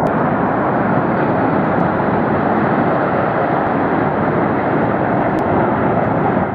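Su-25 attack jets flying past in formation, their engines making a loud, steady roar.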